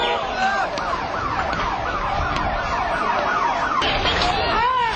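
Ambulance siren in a fast, repeated rising-and-falling yelp over the noise of a crowd in the street.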